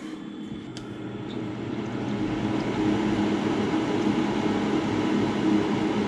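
Gas furnace draft inducer motor starting up, spinning up over the first two to three seconds and then running steadily with a low hum as it pulls draft on the pressure switch.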